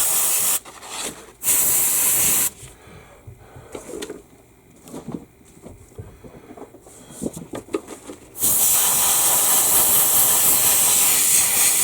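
Airbrush spraying paint: two short hisses of compressed air, small handling clicks between them, then a long steady spray starting about eight seconds in.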